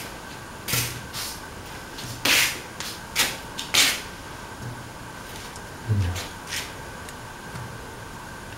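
A series of short, dry rubbing scrapes on a stainless-steel pan heating on the stove, over a faint steady hum. The scrapes are irregular, about seven of them, the loudest in the middle.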